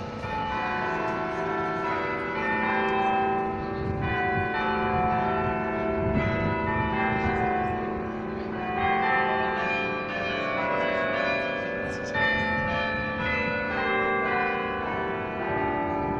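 The 18-bell McConnell Carillon ringing out a tune, one struck bell note after another, each ringing on under the next.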